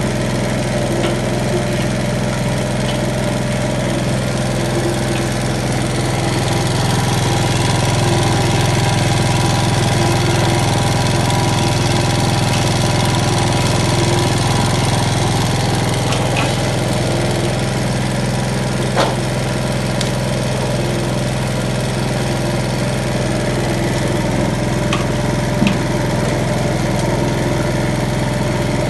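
Single-screw palm fruit oil press running as it presses palm fruit, a steady machine hum from its drive. Two faint brief clicks come in the second half.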